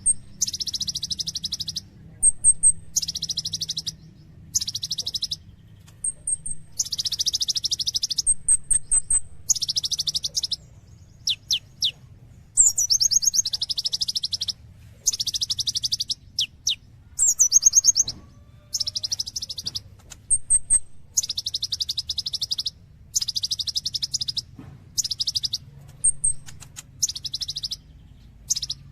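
Olive-backed sunbird (kolibri ninja) singing in full, lively song: rapid trilled phrases about a second long, repeated with short gaps, with thin high chips between them.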